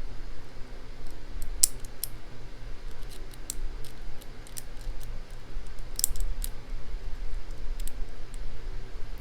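Small, irregular metallic clicks and scrapes of a lock pick working the pins inside a challenge padlock's keyway under tension, over a low steady hum. The pins are binding up, which the picker suspects comes from oversetting some of them.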